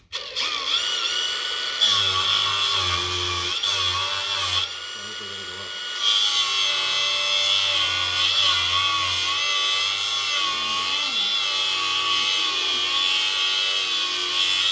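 Milwaukee 2880-20 cordless angle grinder starting abruptly and grinding, its high whine wavering in pitch as the load on the disc changes. It eases off briefly about five seconds in, then bears down again.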